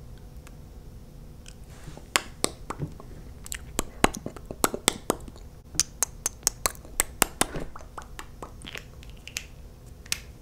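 Lips coated in sticky lip gloss smacking and kissing close up against the microphone. After about two seconds comes a quick, irregular run of sharp, wet clicks that thins out near the end.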